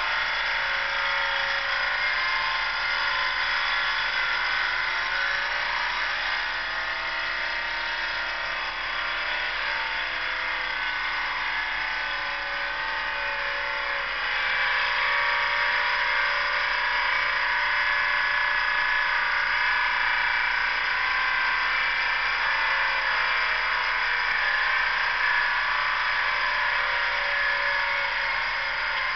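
Detroit Diesel 6-71 two-stroke diesel of a 1954 Euclid rock truck loaded with logs, running as the truck pulls away. The engine note climbs a few seconds in, and the sound gets louder about halfway through. It sounds thin, with no low end.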